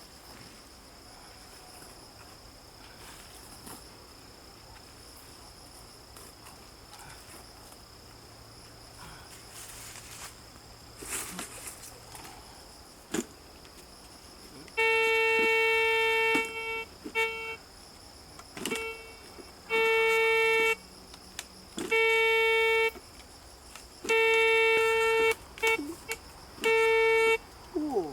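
Metal detector's signal tone, a steady buzzy beep that sounds again and again in bursts of about a second as the coil passes over a metal target. The first half is only quiet outdoor background with a few faint clicks; the beeping starts about halfway in.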